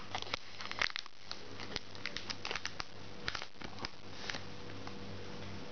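Plastic wrapper of a Pokémon trading-card booster pack crinkling and crackling in irregular fits as it is handled and opened, busiest in the first few seconds, over a faint steady hum.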